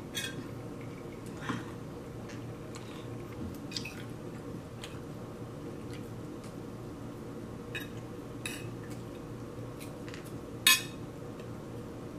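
Scattered light clinks and taps of tableware: a glass of iced water handled and set down, and a metal fork on a ceramic plate. One clink about ten and a half seconds in is much louder than the rest. A steady low hum runs underneath.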